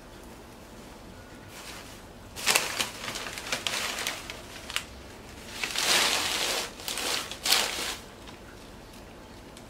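Newspaper wrapping and shredded-paper packing crinkling and rustling as hands unwrap a potted plant, in several bursts that start about two seconds in and stop about two seconds before the end.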